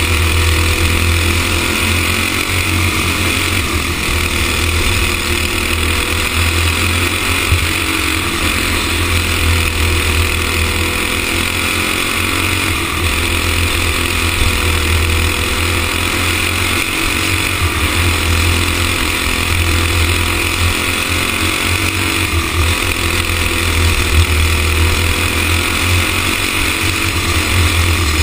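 Racing go-kart engine running hard through a lap, recorded on board, its pitch rising and falling again and again as the kart slows for corners and speeds up out of them.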